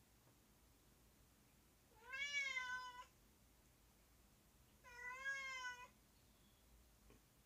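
A domestic cat meowing twice: two drawn-out meows of about a second each, with a rise and fall in pitch, a couple of seconds apart.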